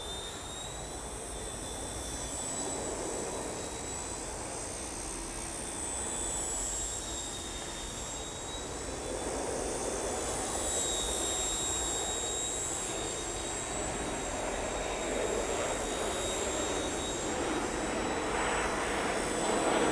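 WLtoys V911S micro RC helicopter in flight, its small electric motors and rotors making a steady high-pitched whine that drifts slightly in pitch, over wind noise on the microphone. It grows a little louder near the end.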